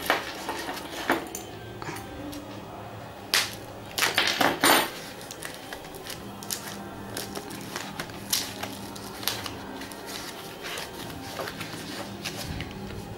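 Paper wrapping crinkling and rustling as it is unfolded by hand, with a cluster of louder crackles about three and a half to five seconds in.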